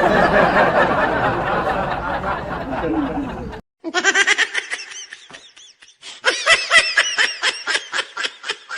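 Repeated bursts of high-pitched laughter, several a second, from about four seconds in. Before it a dense, noisy stretch cuts off suddenly.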